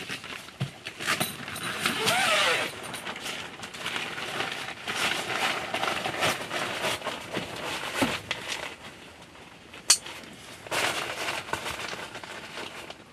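Nylon boat-tent fabric rustling as the front bow flap is opened and rolled up by hand, in irregular bursts, with one sharp click about ten seconds in.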